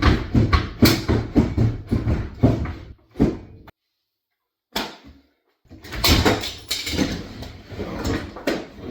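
Wooden kitchen cabinet being knocked and broken out: rapid repeated knocks, about three a second, then cut off suddenly; after a short burst, dense banging and rattling of wood resumes near the end.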